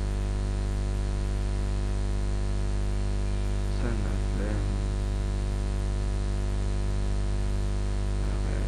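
Steady, low electrical mains hum with a buzzy edge, picked up by the recording microphone. A few faint mumbled words come about four seconds in.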